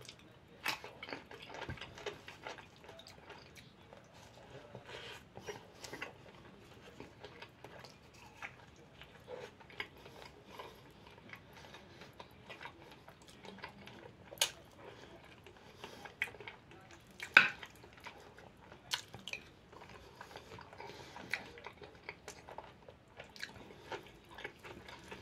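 A man eating: chewing and biting close to the microphone, with scattered soft clicks and a few sharper taps of a fork on a plate, the loudest two in the second half.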